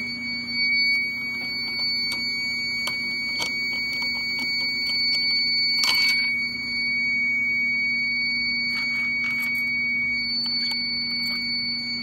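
A Fire-Lite MS-9200 fire alarm system in alarm, its piezo sounder giving a continuous steady high-pitched tone after a heat detector was tripped. A steady low hum runs beneath it, with a few handling knocks and clicks, the loudest about six seconds in.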